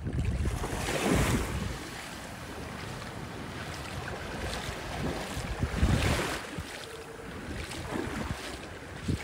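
Small sea waves breaking and washing up over the sand at the shoreline, swelling louder about a second in and again around six seconds, with wind rumbling on the microphone.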